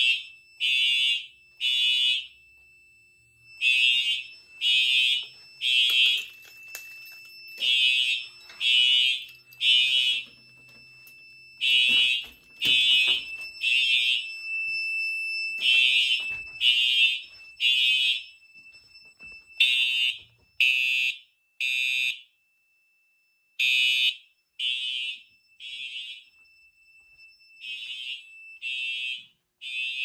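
Simplex TrueAlert fire alarm horns sounding the temporal-three evacuation pattern: three short blasts about a second apart, then a pause, repeating every four seconds or so. A fainter steady tone at the same pitch carries on underneath between the blasts.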